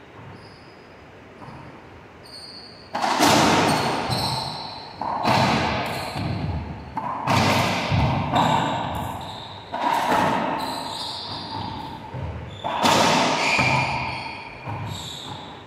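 A racquetball rally: the ball smacks sharply off racquets and the court walls about every two seconds from about three seconds in, each hit echoing in the enclosed court. Before the hits start, shoes squeak briefly on the hardwood floor.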